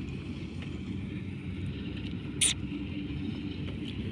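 Farm machine's engine running steadily with a low rumble, with one sharp clack about two and a half seconds in.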